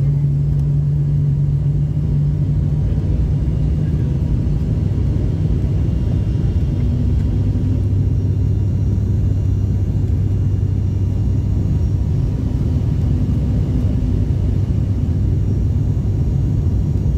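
Cabin drone of a turboprop airliner in flight: the steady rumble of its engines and propellers heard from a window seat. The low hum shifts down in pitch about five seconds in.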